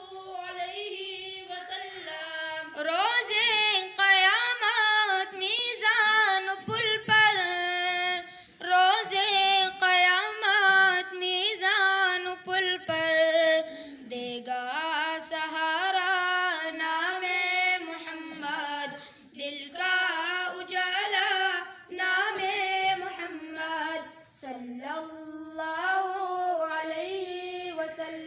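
Schoolboys' high voices singing an Urdu naat, a devotional song praising the Prophet Muhammad, into a microphone. The phrases are long, held and ornamented, with short breaths between them and no instruments.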